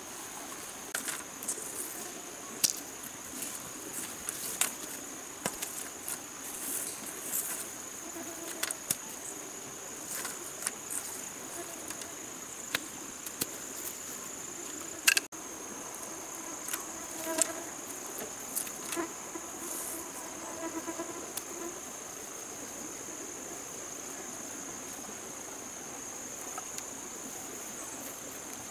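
A steady, high-pitched insect drone. Over it come irregular clacks and knocks of bamboo poles being handled and laid out on the grass, mostly in the first twenty seconds, the sharpest about fifteen seconds in.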